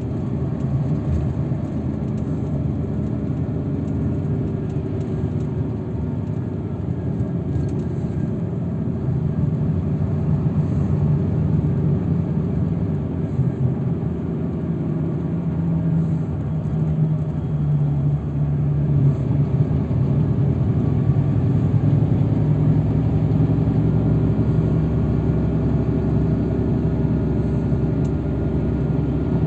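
Steady engine and road noise of a shuttle vehicle on the move, heard as a low rumble with a faint engine tone that rises and grows louder partway through.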